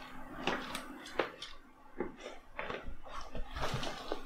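Irregular light knocks and rustling as someone rummages by hand through a storage ottoman, searching for a cable.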